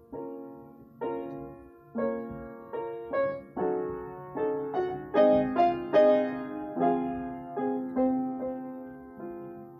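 Solo piano playing a slow piece, notes and chords struck about once a second and left to fade, swelling louder in the middle and easing off near the end.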